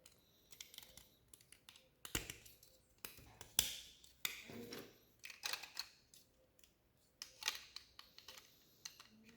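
Plastic Lego Technic pieces being handled and clicked together: irregular sharp clicks and short rattles, the loudest about three and a half seconds in.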